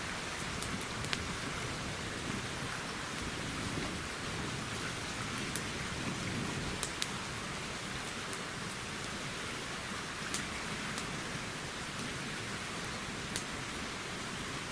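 Campfire crackling: a handful of sharp pops scattered over a steady hiss.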